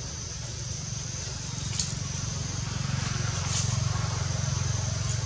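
Outdoor background sound: a low, steady rumble that grows louder about halfway through, under a steady high-pitched buzz, with a few faint clicks.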